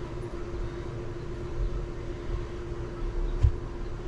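Steady background hum over a low rumble, with a single sharp knock about three and a half seconds in as a metal puller part is handled.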